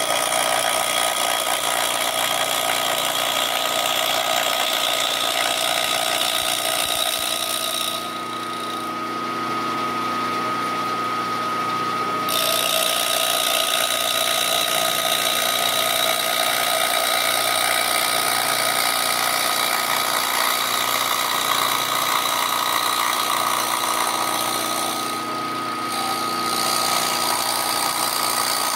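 Milling machine running with its cutter taking a light angled cut across a small block, a steady tone under a hissing cutting noise. The hiss drops away twice, for about four seconds and then for about a second, while the machine's steady tone carries on.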